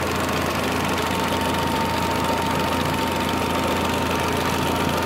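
Fiat Cinquecento engine idling steadily while it warms up to operating temperature, heard up close in the engine bay, with a thin steady high whine over it.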